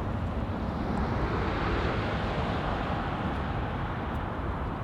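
Jet airliner passing, its engine noise a steady rush that swells to a peak about two seconds in and then fades.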